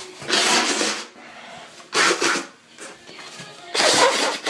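A person sneezing three times in a row, about two seconds apart, each sneeze a loud, breathy burst.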